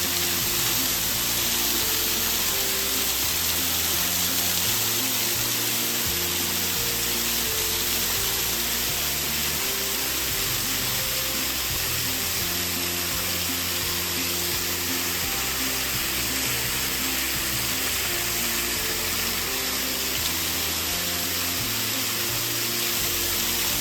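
Background music with slow, held low notes over a steady rush of falling water, like a waterfall.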